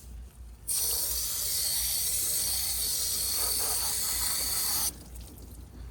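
Spray bottle misting water onto a headlight lens in one continuous hiss of about four seconds, starting about a second in and cutting off sharply. It is wetting the lens for wet sanding with 2000-grit paper.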